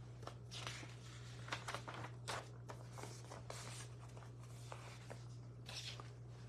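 Faint room tone: a steady low hum under scattered small rustles and clicks.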